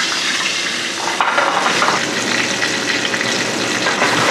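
A Chilean sea bass fillet sizzling steadily in hot oil in a metal skillet on a gas burner.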